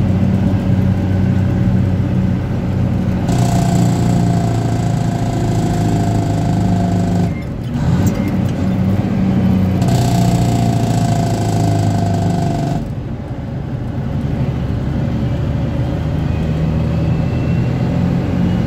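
Engine of a 1975 Dodge Big Horn tandem tractor, heard from inside the cab, running steadily as the truck drives. Twice a steady whine and hiss rise over the engine, for about four seconds and then about three, and each cuts off suddenly, followed by a short drop in engine sound.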